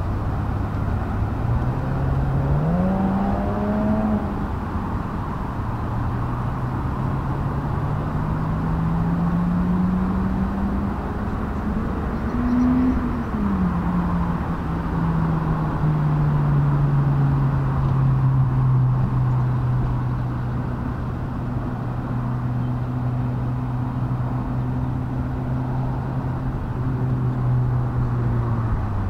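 An engine running over a steady low rumble, its pitch rising and falling slowly several times, then holding fairly steady in the second half.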